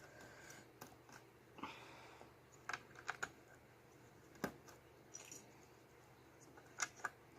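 Faint, scattered clicks of plastic Lego bricks being handled and pressed together, about eight in all at uneven intervals, the sharpest about halfway through.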